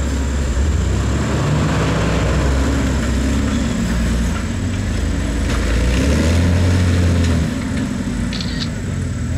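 A rock-crawling Jeep's engine working under load as it climbs over boulders, its note rising and falling with the throttle and loudest about six to seven and a half seconds in.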